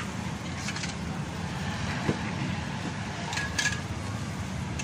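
A few sharp metal clicks of tongs and a spatula against a large iron tawa as parathas are handled, over a steady low rumble.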